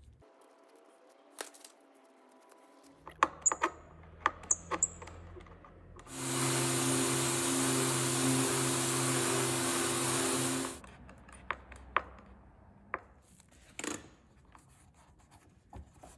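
Metal clinks of a stainless cleat and its bolts being handled, then a workshop vacuum running for about four and a half seconds and switching off suddenly, as the deck is vacuumed clean where the cleat is to be bedded.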